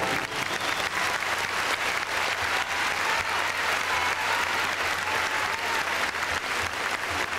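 Arena audience applauding: dense, steady clapping as a skating number's music ends.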